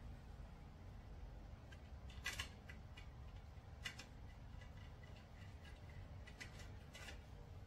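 A few faint, sharp clicks and light taps as a hand works inside a hollow wooden table leg at its mounting bolt, the loudest cluster about two seconds in.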